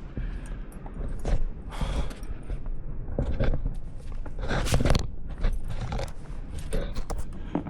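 Footsteps crunching through snow on a trail, an uneven run of steps.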